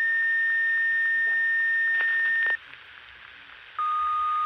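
Radio two-tone sequential paging tones: a steady high tone cuts off about two and a half seconds in, then after about a second's pause a new, lower steady tone begins.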